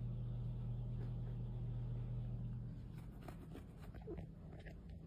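A steady low hum that stops nearly three seconds in, followed by a few faint, short clicks and rustles.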